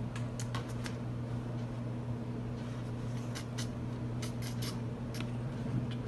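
Steady low hum, with a scattering of light, sharp clicks in small clusters.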